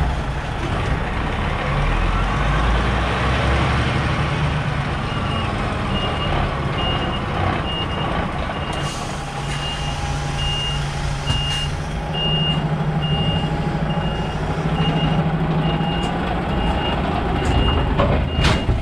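Diesel engine of a tractor-trailer truck running steadily while the rig reverses. A reversing alarm starts beeping a few seconds in, evenly and a little more than once a second. A few sharp clicks or knocks come near the end.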